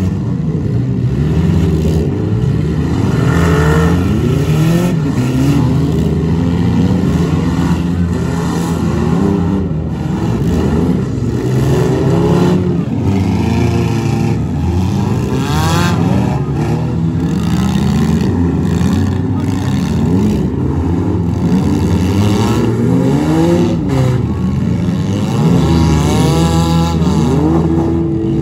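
Several compact cars' engines revving up and down at once, overlapping, with scattered knocks of car bodies hitting each other.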